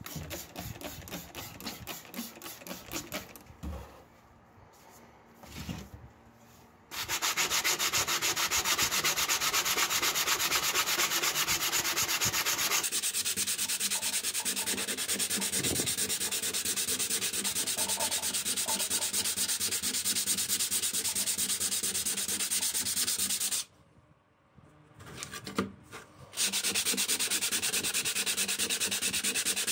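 Steel masonry trowel blade being sanded by hand with sandpaper to take off rust, with rapid back-and-forth rasping strokes. The rubbing is loose and broken for the first several seconds, then runs fast and steady, with a brief pause about three-quarters of the way through.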